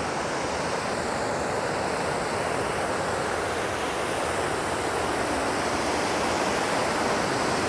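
Creek water rushing steadily over small waterfalls and rocks.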